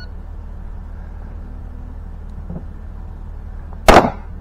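A single rifle shot about four seconds in, very loud and sharp with a short fading tail. It is the opening shot of a timed match stage, fired over a steady low background rumble.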